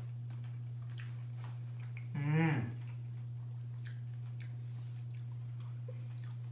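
A person chewing a mouthful of chicken biryani, with faint soft mouth clicks, over a steady low hum. About two seconds in comes a short wordless vocal sound.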